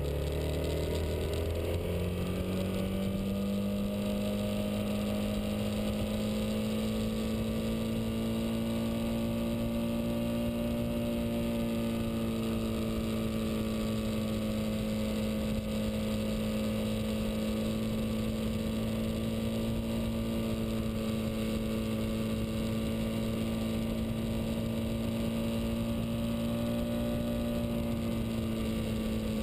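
Motorcycle engine under way, its note climbing over the first couple of seconds and then holding steady at a cruising speed, dipping slightly near the end. A low rush of wind and road noise runs underneath.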